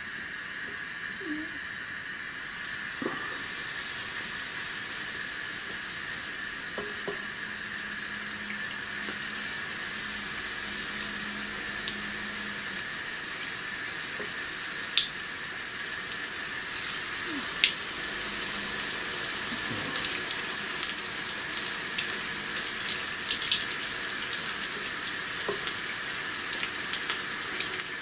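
Battered green chillies deep-frying in hot oil in an iron karahi: a steady sizzle that swells about three seconds in, with scattered pops and crackles.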